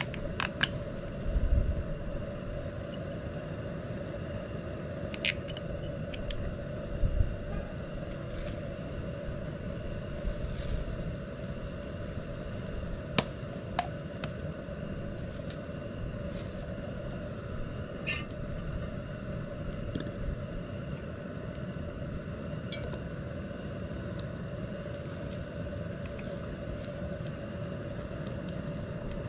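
Portable camping gas stove burner running with a steady rumbling roar, heating the pan before frying. A few sharp metal clinks of cookware come through over it.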